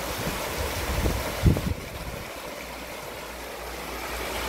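Shallow river rapid rushing over rocks, with a brief low thud about a second and a half in.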